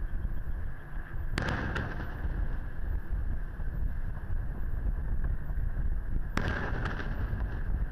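Two No. 5 (15 cm) aerial firework shells bursting over the harbour, about five seconds apart. Each is a sharp boom followed by a couple of fainter after-cracks. A steady low rumble of wind on the microphone runs underneath.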